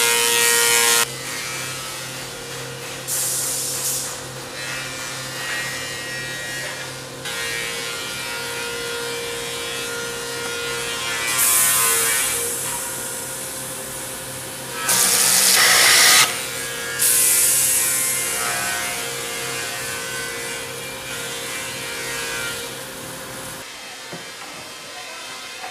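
Woodworking machine running with a steady hum, its cutter head biting into a wooden board in several loud bursts of cutting noise, the longest about two-thirds of the way through. The hum stops near the end.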